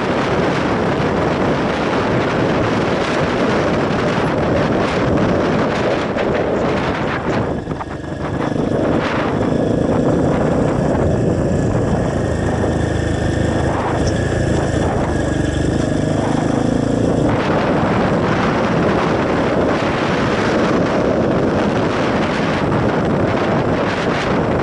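Motorcycle engine running under way, mostly buried in wind rushing over the microphone. For about nine seconds in the middle the wind noise drops and the engine's steady note comes through plainly, then the wind rush returns.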